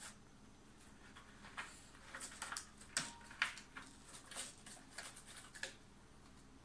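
Cat clawing and pawing at a carpeted scratcher: an irregular scatter of faint scratches and clicks, starting about a second and a half in and stopping shortly before the end.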